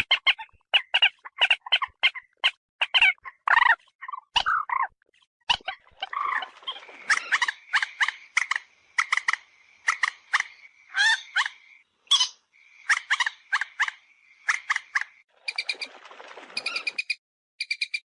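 Common moorhen calling: a string of short, sharp clucks and kek notes in irregular bursts, some in quick pairs. Near the end the calls turn into a fast, even run of ticking notes, about five a second.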